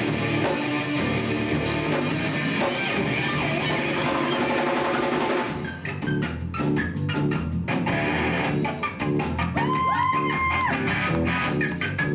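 Live rock band playing electric guitar, bass guitar and drum kit. A dense, sustained passage gives way about six seconds in to a choppier part punctuated by sharp drum hits, with a held note sliding up near the end.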